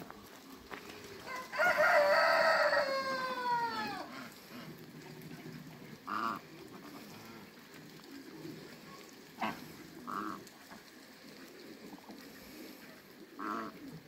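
A rooster crows once, about a second and a half in: one long call lasting two to three seconds that falls in pitch at its end. A few short single calls from the surrounding farmyard waterfowl follow.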